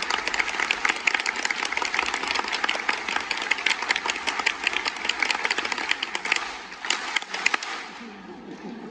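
Large audience applauding: dense clapping that thins out about six and a half seconds in, with a few last claps near seven seconds, then dies away.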